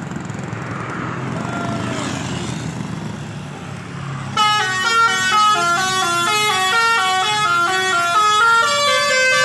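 Low bus engine and road rumble. About four seconds in, a telolet basuri bus horn starts abruptly and plays a quick melody of stepped, horn-like notes, loud and continuing.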